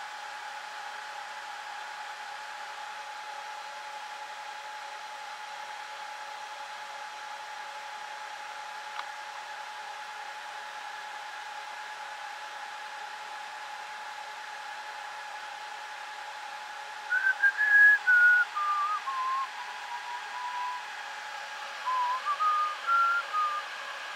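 Dell PowerEdge 2650 server's cooling fans running with a steady whine. About two-thirds of the way in a person whistles a short tune over it, the notes stepping down and then back up.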